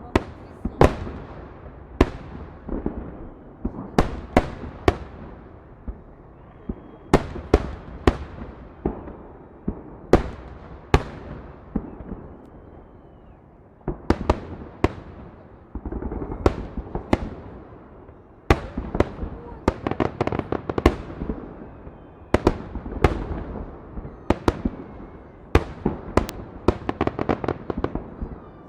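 Fireworks salute: a long series of sharp bangs from shells bursting overhead, each trailing off briefly, spaced out at first and coming thick and fast in the second half.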